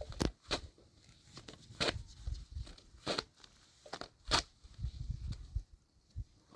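A series of sharp, irregular knocks and snaps, about six of them, with low rustling in between.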